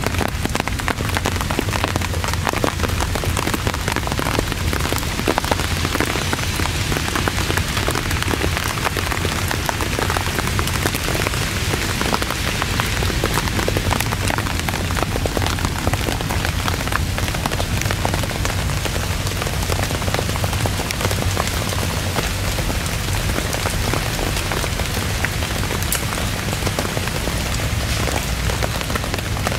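Torrential rain falling steadily, with many individual drop hits heard through the constant hiss.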